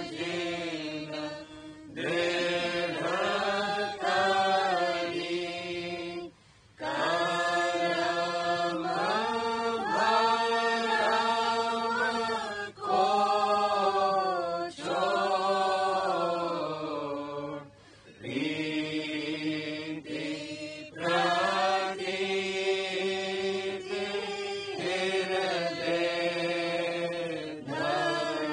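Devotional chanting of a Radhasoami shabd (hymn): a voice sings in long, held phrases that slide between notes, broken by short pauses every few seconds.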